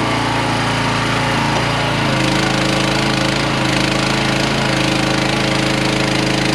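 QH13R micro mini excavator's engine running steadily under working load, its pitch shifting slightly about two seconds in.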